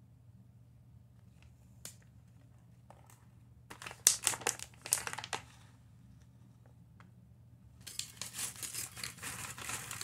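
Foil potato chip bag crinkling as it is handled, in a burst about four seconds in and again from about eight seconds in, with a few single crackles between.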